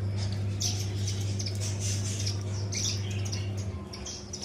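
Indian silverbills chirping: many short, high calls in quick succession, over a steady low hum that stops near the end.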